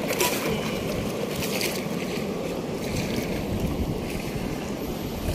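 Wind buffeting the microphone over a steady rushing noise.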